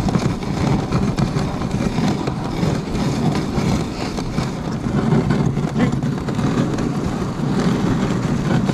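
Dog sled running along a packed snow trail behind a husky team: a steady rough scraping and hissing of the runners over the snow, with small knocks from the sled.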